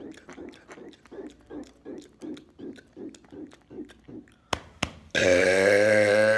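A man gulps air in quick, even swallows, about three a second. After two sharp clicks he lets out one long, loud, deep burp lasting over a second near the end.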